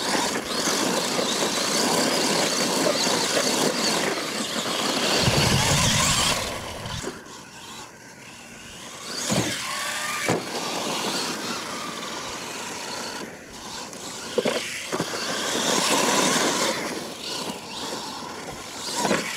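Radio-controlled solid-axle monster truck driving hard on dirt: its motor whining up and down with the throttle and its tyres scrabbling through loose dirt. A couple of sharp thuds near the middle as it lands a jump.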